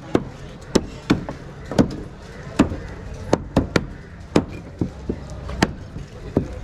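A heavy curved fish knife chopping barracuda into pieces on a wooden chopping block: a dozen or so sharp chops at an irregular pace, about two a second.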